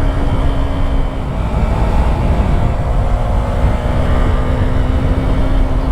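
Yamaha YZF-R3 parallel-twin engine running at a steady road speed: a constant engine note under heavy wind rumble. The note fades briefly about a second in and then holds steady again.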